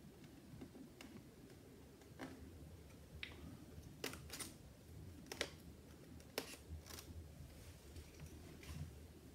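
Faint, scattered small clicks and taps, about eight in all, from hands handling the opened iMac's parts and cable connectors, over a faint low hum.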